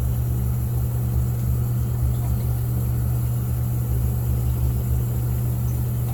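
Steady low machine hum running without change.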